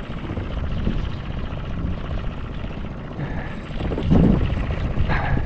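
A boat's outboard motor running with a steady, fast-pulsing low rumble, getting louder twice near the end.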